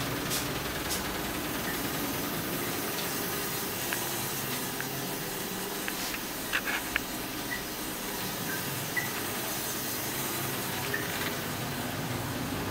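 Steady background hiss of room noise, with a few faint clicks and taps, a small cluster of them about halfway through.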